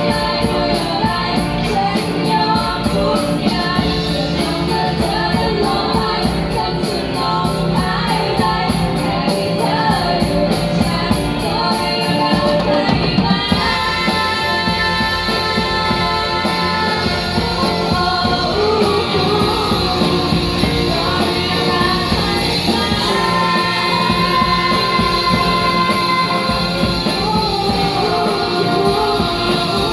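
Rock band playing live with a singer, guitar and drums over a steady beat; the sound grows fuller about halfway through.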